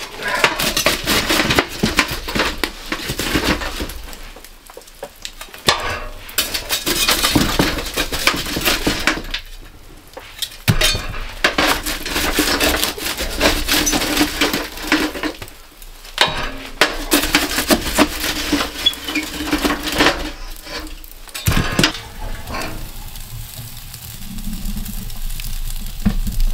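Metal scraping and clanking as hot coals are shovelled out of a barrel wood stove and dropped into a galvanised metal bucket, in irregular bursts with a few short pauses. Quieter for the last few seconds.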